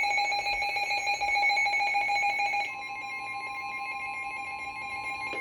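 Emergency Alert System alert tones: a buzzy, rapidly pulsing electronic tone, then about halfway through a quieter single steady tone takes over, the warning alarm tone that comes before a broadcast severe thunderstorm warning.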